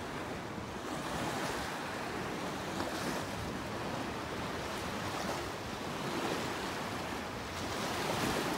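Steady rush of water with small waves washing on a sandy shore, and wind noise on the microphone.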